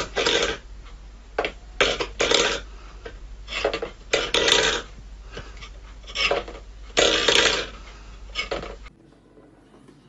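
Stainless steel pet bowl pushed and knocked across a wooden floor by a cat's paw: about a dozen short, irregular metallic scrapes and clanks, then quiet from about nine seconds in.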